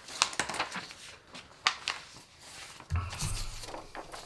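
Sheets of paper being handled and slid off a wooden desk: a run of crisp rustles and clicks. About three seconds in there is a low bump followed by a second or so of brushing.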